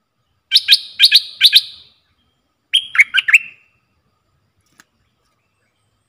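Stripe-throated bulbul calling: two quick bursts of sharp, high chirping notes, about four notes each, the second burst coming about a second after the first ends.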